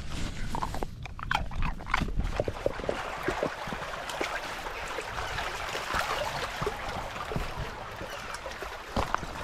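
Shallow stream running steadily over stones, with dogs splashing as they wade through it. At first, scattered knocks and rustling from a dog-mounted camera pushing through long grass.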